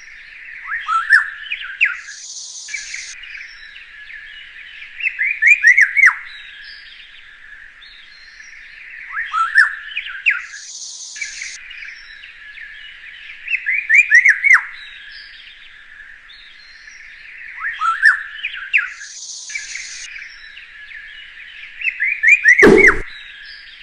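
A songbird singing the same short phrase about every four seconds, each phrase a quick run of downward-sweeping chirps, over a steady hiss. A brief loud burst comes near the end.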